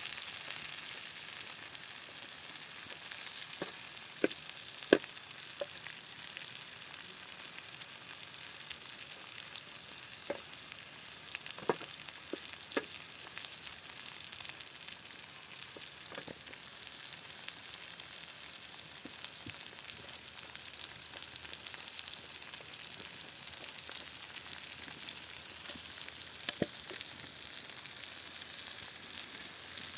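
Vegetables sizzling in a hot pan, a steady frying hiss, with occasional sharp clicks and taps, the loudest about five seconds in.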